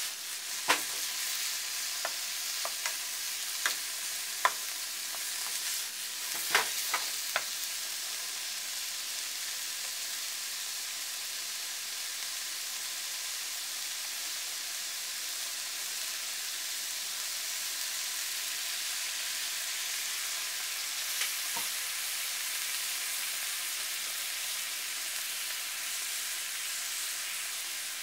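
Sliced pork and onion sizzling in oil in a frying pan, a steady frying hiss. About ten sharp clacks of the wooden spatula and pan come in the first several seconds as it is stirred and moved, and one more later.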